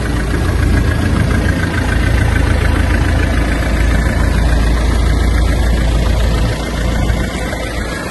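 A fishing launch's engine running steadily under way, a loud low rumble that eases slightly near the end.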